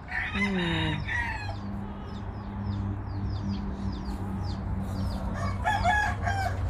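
Chickens calling: a rooster crows about half a second in and hens cluck near the end, over short high chirps repeating throughout and a steady low hum.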